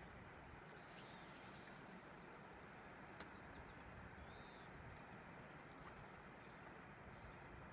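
Near silence: faint outdoor ambience by a river, a steady low hiss with a brief high hiss about a second in, a few faint ticks and one short high chirp a little after four seconds.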